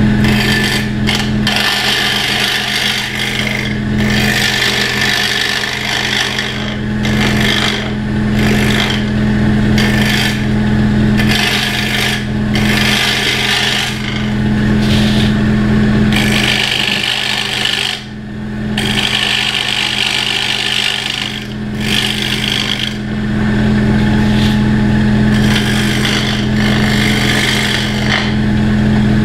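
Wood lathe running with a steady motor hum while a hand-held scraper shaves a spinning wooden sphere, a hissing cut that comes and goes in passes with brief lulls as the tool is moved around the ball. This is the light finishing cut that trues up the sphere.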